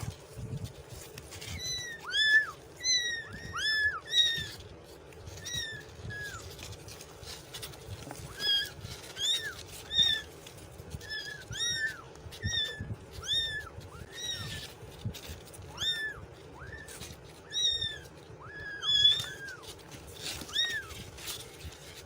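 Kitten mewing over and over: short, high-pitched calls that rise and fall, about one or two a second.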